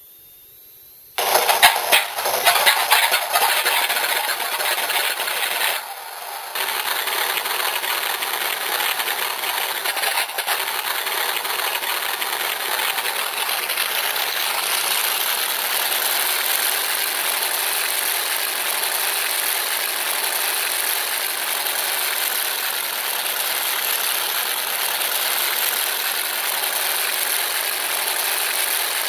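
RC sound generator module playing its simulated Pratt & Whitney Double Wasp radial aircraft engine sound through its speaker. The startup sound of cranking and uneven firing begins about a second in and drops off briefly around six seconds, then the module switches to its idle mode and the engine runs steadily.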